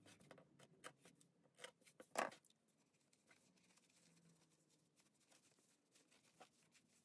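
Mostly near silence with a few faint snips and clicks of fabric scissors clipping the corners of a small sewn pocket, the loudest about two seconds in; after that only faint handling of the fabric as it is turned right side out.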